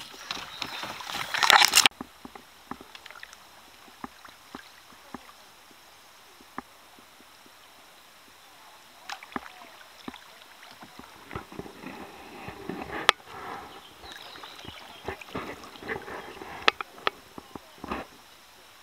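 Leaves and branches rustling and scraping loudly against the boat as it pushes through overhanging bushes for about the first two seconds. Then quieter kayak paddling, with scattered knocks and splashes of the paddle blades.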